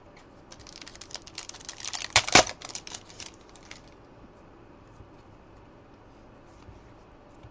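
Foil trading-card pack being torn open and crinkled by hand: a dense run of crackling that peaks sharply a little after two seconds in and dies away before the four-second mark, leaving only faint clicks of cards being handled.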